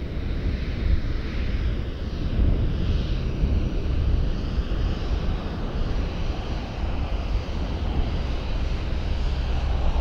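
Jet aircraft engine noise: a deep, steady rumble with a hissing upper band that slowly shifts in pitch, starting abruptly.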